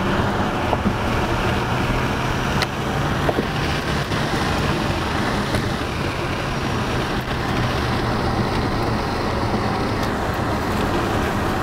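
Cabin noise of a Tesla Model S Beta electric sedan being driven: steady tyre and road noise with a low hum from the rear drive motor. A passenger says it sounds like an engine rather than an electric motor.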